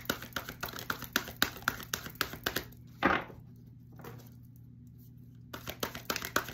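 A deck of oracle cards being shuffled by hand: rapid clicks of cards slapping together, several a second. The shuffling pauses about three seconds in and resumes near the end.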